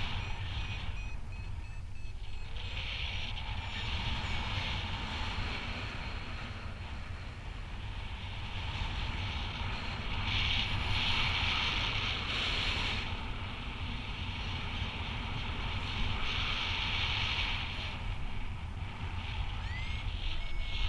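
Airflow rushing over the microphone of a paraglider in flight: a steady rumble and hiss that swells into louder gusts several times. In the first few seconds, and again briefly near the end, it carries a faint run of electronic beeps, a variometer's climb tone.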